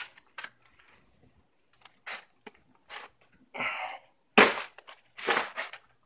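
Plastic dustpan scooping and scraping into drifted snow, crunching in a series of irregular strokes, the loudest a little past four seconds in.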